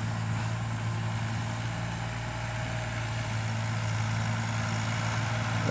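Farm tractor engine running steadily, a low even hum, while it works a tiller.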